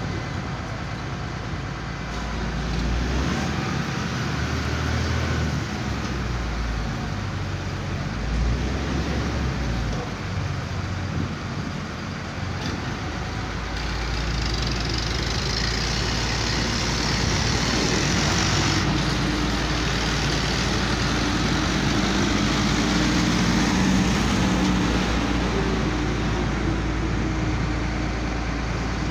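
Heavy diesel engines running steadily: a Hyundai HL770-7 wheel loader and farm tractors. The engine sound grows louder about halfway through.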